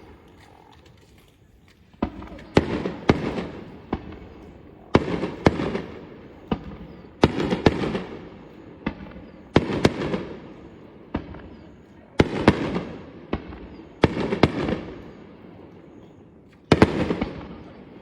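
Aerial fireworks shells bursting: sharp bangs in clusters every two to three seconds, starting about two seconds in, each cluster trailing off in a rolling echo.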